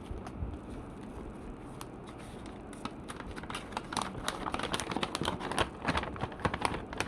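Plastic wrapping being torn and crinkled off by hand: quiet at first, then a dense run of crackles and rustles that grows louder from about three seconds in.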